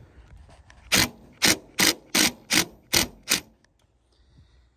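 Cordless DeWalt impact driver driving a screw into a steel bracket in seven short bursts, about three a second, then stopping. The screw is one of the kit's supplied screws, which breaks off.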